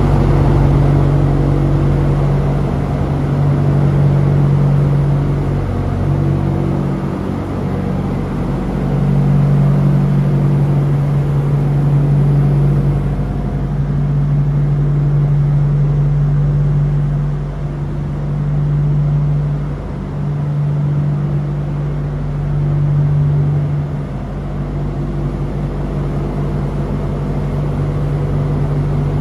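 Thermo King SLXi300 trailer refrigeration unit running, heard from inside the empty insulated trailer box: a steady hum whose loudness rises and falls every few seconds.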